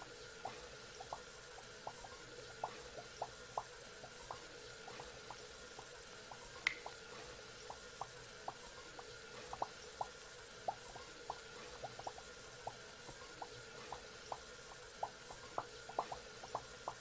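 Faucet dripping: small irregular plinks of water drops, roughly two a second, over a faint steady hum. One sharper, brighter click comes about a third of the way through.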